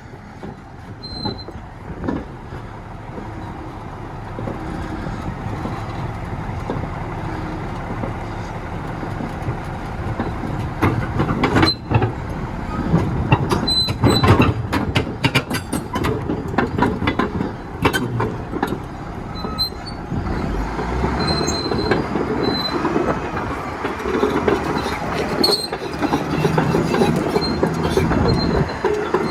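A train rolling past, its wheels clicking over the rails with short high-pitched squeals, growing louder through the stretch.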